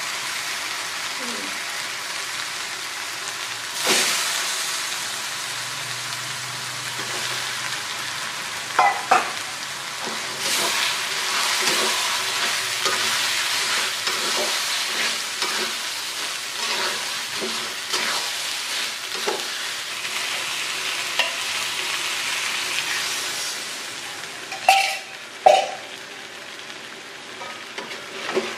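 Raw chicken pieces sizzling in hot chilli spice paste in a metal wok, with a metal spatula scraping and knocking against the pan as they are stirred and turned. The sizzle eases off near the end, where a few sharper knocks stand out.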